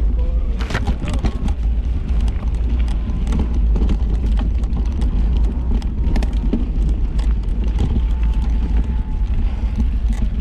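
Mountain bike riding over a rough trail: a steady low rumble with frequent clicks and rattles throughout.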